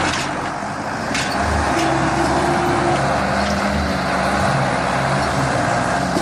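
A heavy vehicle's engine running steadily under load, its pitch shifting slightly now and then, with a couple of brief knocks in the first second or so.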